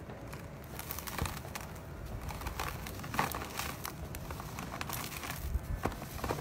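A dry sand-cement block crumbling as it is broken apart by hand, giving irregular gritty crackles as chunks crack and loose grains fall onto a heap of sand-cement powder.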